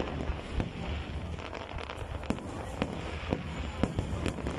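Aerial fireworks display: shells bursting in sharp bangs, about six in quick succession, over a steady background of crackle and noise.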